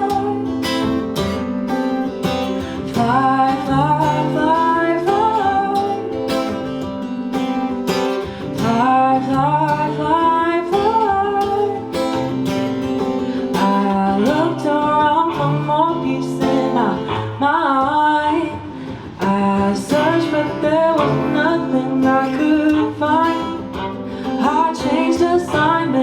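Live acoustic song: a woman singing a gliding melody over strummed acoustic guitar and a cello holding long low notes.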